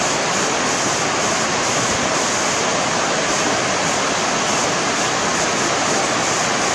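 Steady rushing of water spilling over a concrete weir into a shallow pool: an even, unbroken hiss with no distinct splashes.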